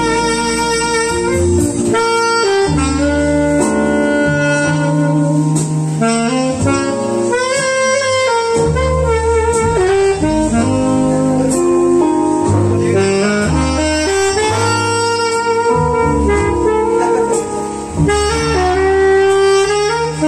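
Saxophone playing a jazzy melody in held and moving notes over an accompaniment with a bass line and chords.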